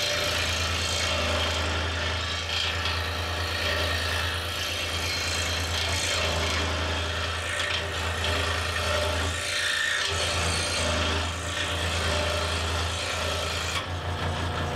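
Delta scroll saw running with a steady low hum while its reciprocating blade rasps through a thin piece of scrap wood, cutting out a small test key.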